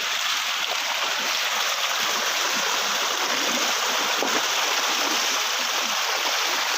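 Monsoon rainwater runoff rushing in a swollen channel: a steady, unbroken gush of flowing water.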